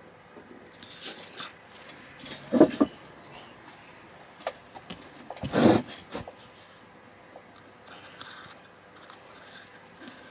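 Handling noise from a plastic model kit body being turned and brushed in the hand: soft rustles and small ticks, with a quick double knock about two and a half seconds in and a heavier knock near six seconds.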